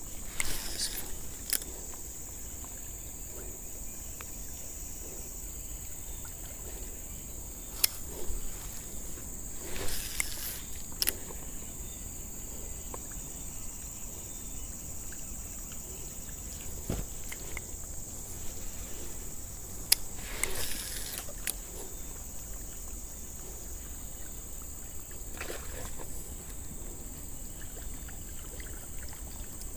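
Lure fishing with a baitcasting rod and reel: scattered sharp clicks and a few short noisy sweeps about ten and twenty seconds in, from casts and the lure working the water, over a steady high insect drone.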